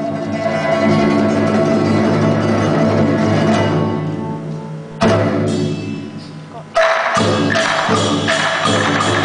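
Chinese orchestra playing, with pipa and drums: sustained melodic playing, a sudden loud ensemble entry about five seconds in, and after a brief fall-off another loud entry near seven seconds that goes into a steady beat of percussion strikes.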